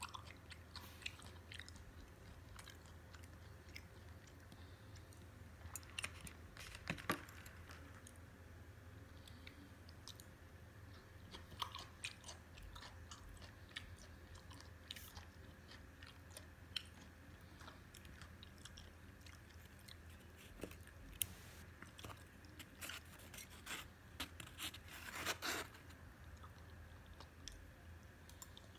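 Close-miked chewing of raw sliced fish (hoe): soft, wet crunching and mouth clicks that come in scattered clusters, over a faint steady low hum.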